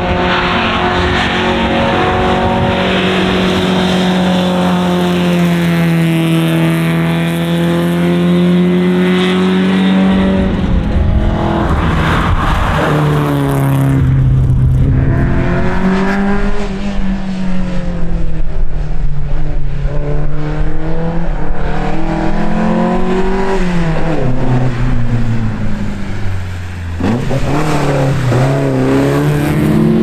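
Volvo 122S rally car's four-cylinder engine pulling hard at high revs, its note held steady for a while, then falling and rising again and again through gear changes and throttle lifts. Late on the note drops sharply and then climbs again.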